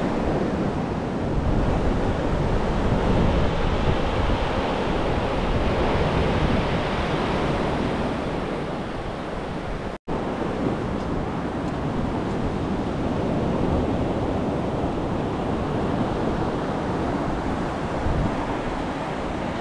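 Sea surf washing on a beach, mixed with wind rumbling on the microphone. The sound is steady, with an abrupt dropout for an instant about halfway through.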